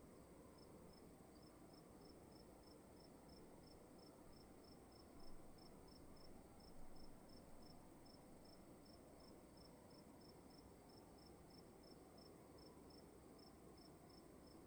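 Faint cricket chirping steadily, about three chirps a second, over a continuous high thin whine and a low hiss of room tone.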